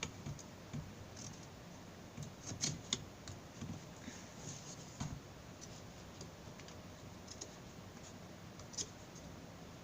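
Swiss Army knife's small blade carving a wooden stick: faint, irregular scrapes and clicks as shavings come off, with a few sharper ticks about a third of the way through.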